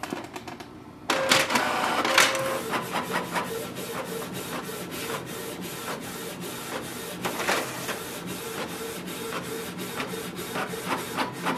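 Canon PIXMA TS3725 inkjet printer printing a test page: its motor starts suddenly about a second in, then runs with a steady whine and many rapid clicks as the sheet is fed through and printed.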